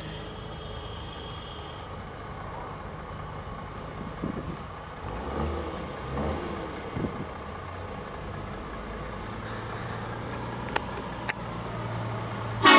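Heavy diesel truck engines running as a Volvo truck rolls slowly closer, its low hum growing louder over the last few seconds. A brief loud horn blast comes right at the end.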